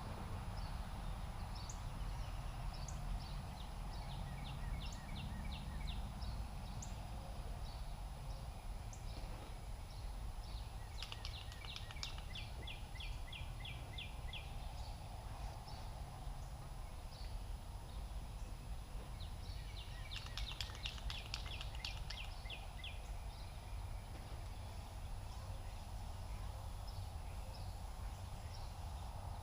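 Small songbird trilling three times, each a quick run of repeated high notes lasting two to three seconds, over a steady low rumble.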